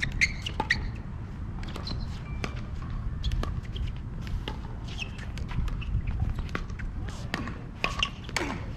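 Scattered sharp pops of pickleball paddles striking plastic balls and of balls bouncing on the hard court, at uneven intervals, over a steady low rumble.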